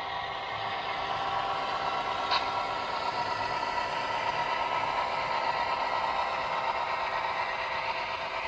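Model Great Northern F-unit diesel locomotives running along the layout track with a steady, engine-like drone of several held tones. A single sharp click comes about two and a half seconds in.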